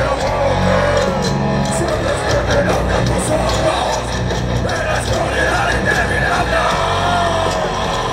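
Live heavy metal band playing loud and steady: distorted electric guitars, bass and drums, with a singer's voice over them.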